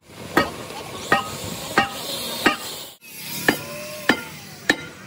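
Hammer blows on metal at an even pace, about one every 0.7 seconds, each ringing briefly, over steady background noise. The sound breaks off for an instant about three seconds in, then the blows go on at the same pace.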